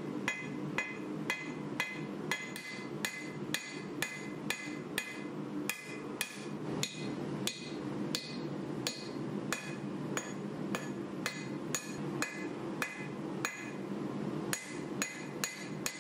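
Hand hammer striking a red-hot steel knife blank on an anvil face in a steady rhythm of about two to three blows a second, each blow ringing brightly, as the clip-point angle is forged into the back of the blade. A steady low hum runs underneath.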